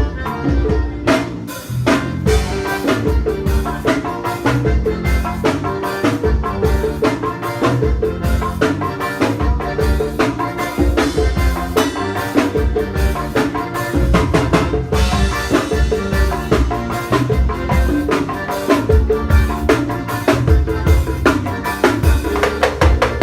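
A drum kit played in a steady groove, with kick and snare hits, over music that has bass and other pitched instruments.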